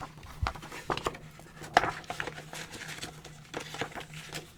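Scattered small taps and rustles of a vinyl record album and its packaging being handled, over a faint steady low hum.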